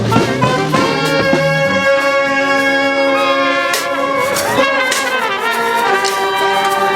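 Street brass band playing long held chords on horns including trombones, the chord shifting every second or two.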